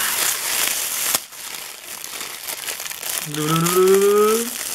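Thin red plastic wrapping crinkling as it is pulled off a die-cast toy truck by hand, loudest in the first second. Near the end, a man's voice gives a short wordless sound that rises in pitch.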